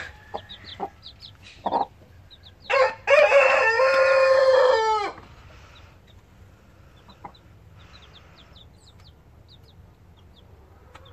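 A rooster crows once: a short note about three seconds in, then one long call lasting some two seconds, the loudest sound here. Rhode Island Red chicks peep in short, high cheeps around it.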